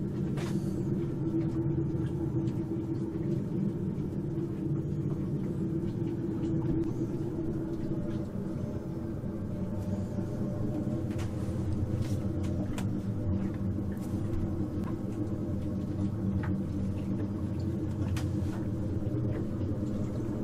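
Inboard marine diesel engine of a sailboat running steadily, with a few light clicks over it.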